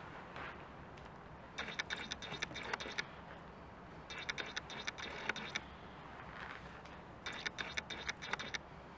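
Homemade 1/10 scale RC rock crawler's mechanism whirring and clicking in three short bursts of about a second and a half each.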